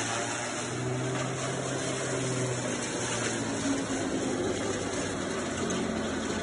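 Forage chopper (chaff cutter) running steadily with a continuous mechanical hum.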